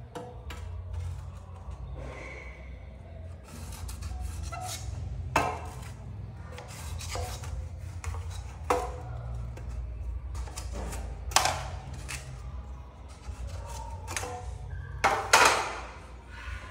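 Tools knocking and scraping on hard surfaces: a few sharp knocks about every three seconds, then a longer, louder scrape near the end, over a low steady hum.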